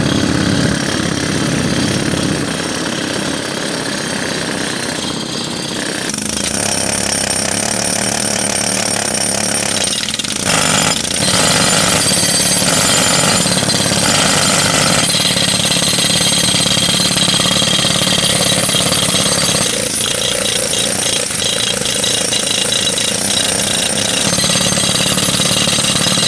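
Pneumatic jackhammers breaking concrete, hammering loudly and continuously, with a few brief pauses about ten seconds in.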